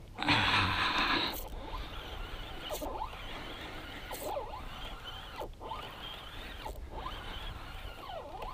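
Spinning reel being cranked to retrieve a lure, a steady whirring, gear-like sound with a light rhythmic pulse. It follows a loud rushing noise lasting about a second at the start.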